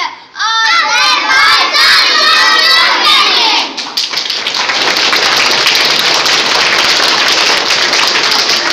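A group of schoolchildren shout out together for about three seconds, then loud applause and cheering from the children fills the hall.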